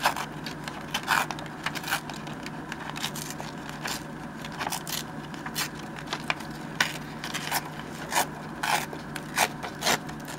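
Printed paper being torn by hand and handled: a string of short, irregular rips and rustles, growing louder and more frequent in the second half.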